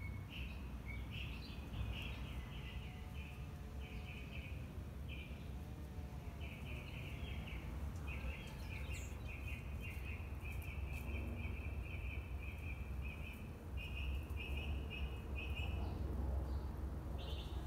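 Quick runs of high chirping calls, repeated over and over with short gaps, pausing about sixteen seconds in and starting again near the end, over a low steady background rumble.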